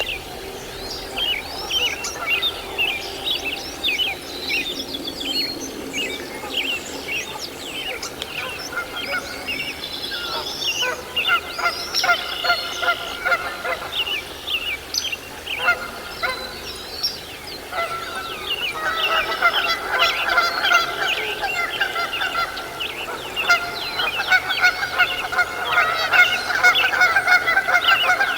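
Birds calling continuously: a dense run of short high chirps, joined about a third of the way in by longer honking calls that grow louder toward the end.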